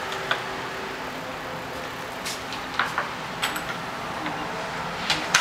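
Air conditioner running with a steady hum, kind of loud, which the owner suspects comes from an older unit. A few light clicks and knocks sound over it.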